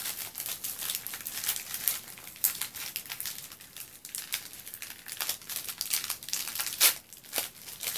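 Crinkly wrapping being picked at and pulled open by hand to unwrap a bath bomb: a run of fine crackles, with one sharper crackle near the end.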